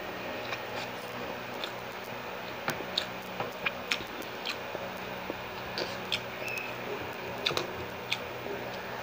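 Close-miked chewing of siomai (steamed pork dumplings): soft wet mouth smacks and irregular sharp clicks, with a faint steady hum underneath.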